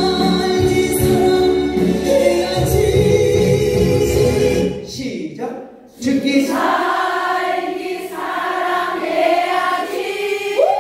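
A roomful of women singing a Korean pop song in unison over a backing track with a steady bass beat. The backing drops away briefly about five seconds in, then the group singing carries on.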